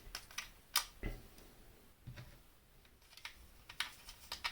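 About a dozen light plastic clicks and taps, irregularly spaced, as the Commodore 64 keyboard's mechanical key plungers are set back into place one by one.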